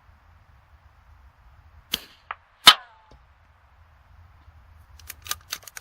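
A single .22 LR rifle shot, a sharp crack with a short ringing tail, preceded by two light clicks. About two and a half seconds later comes a quick series of metallic clicks.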